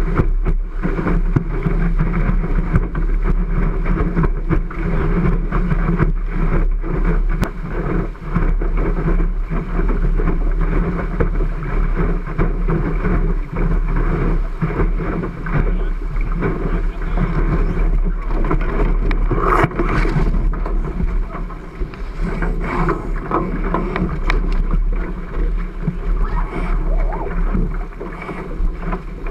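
Wind buffeting the deck-mounted camera and water rushing and splashing along the hull of a Cherub skiff sailing fast downwind. A steady, muffled rush with a deep rumble, broken by a few short knocks and splashes.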